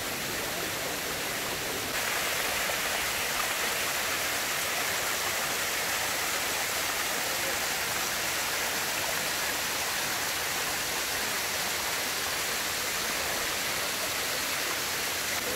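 Waterfall of many thin streams falling over a moss-covered rock face, a steady rushing splash that gets a little louder about two seconds in.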